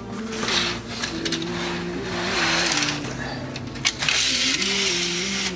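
Hotel window curtains being pulled open: fabric rustling and sliding in two swishes, with a sharp click between them. Steady low tones that hold and step in pitch run underneath.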